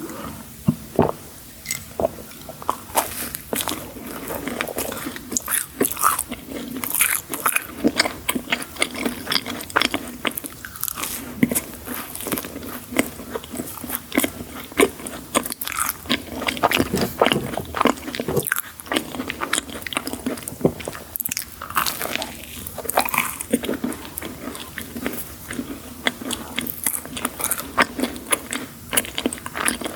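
Close-miked eating of crunchy sweets: bite after bite with many sharp crackling crunches and chewing, going on without a break.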